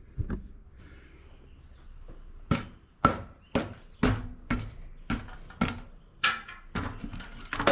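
A run of sharp knocks, about two a second, each with a short ringing tone, starting a couple of seconds in after a quiet start.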